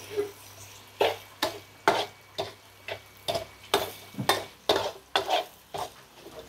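Metal spatula scraping and stirring a sticky sugar, garlic and spice mixture around a wok, about two strokes a second, with a faint sizzle between strokes. The sugar is being caramelized until it burns, to colour the braise.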